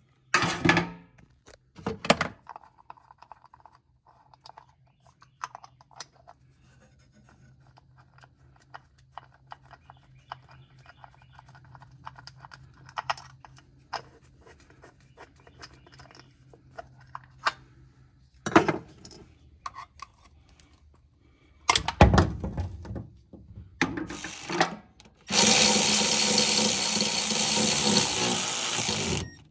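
Light metal clinks and clicks of small parts and tools being handled, a few louder knocks, then a cordless power tool running steadily for about four seconds near the end, driving the bolts of a spin-on oil filter adapter base into the engine.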